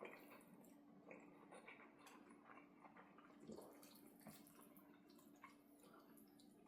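Faint, wet eating sounds: small irregular smacks, clicks and squelches of chewing, over a faint steady hum.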